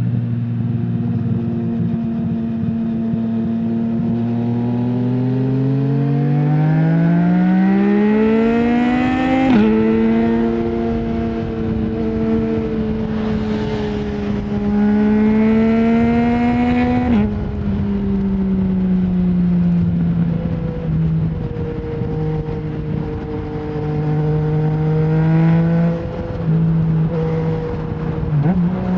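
Yamaha MT-09 three-cylinder engine through an Akrapovic full exhaust with no dB killer, pulling hard through the gears. The pitch climbs steadily, then drops abruptly at two quick upshifts. After that it holds a steadier, lower note, with small dips near the end.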